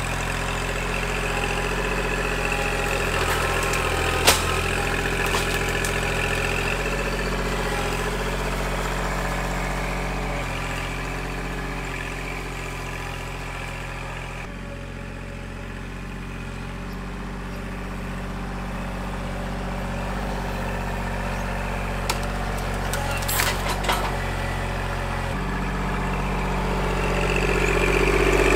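Kubota L2501 compact tractor's three-cylinder diesel engine running as the tractor drives along, growing fainter about halfway through and then louder again. A few sharp knocks come through, one about four seconds in and a cluster near the end.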